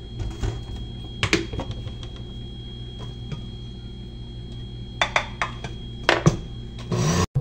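Plastic cooking-oil bottle and kitchen things being handled on the counter: scattered knocks and clunks, loudest about a second in and again around five to six seconds in, over a steady low hum. A short louder rush comes near the end before the sound cuts off abruptly.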